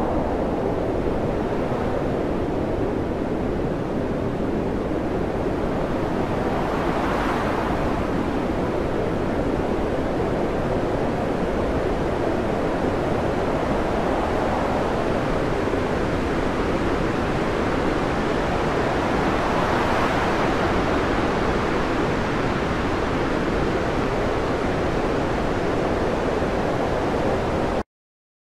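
Storm wind and heavy seas around a ship, a steady loud roar of wind and spray that swells twice, about a quarter of the way through and again about two-thirds through.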